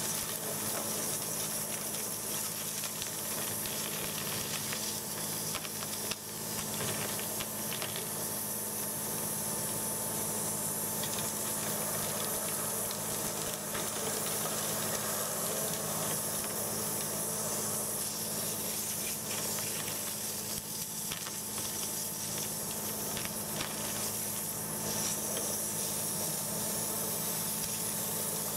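High-pressure water jetting at about 4,000 PSI: a steady hiss of water spray from a Warthog sewer-jetting nozzle cutting through packed debris inside a clear 4-inch acrylic pipe. Underneath it, the jetting machine drones with a steady hum.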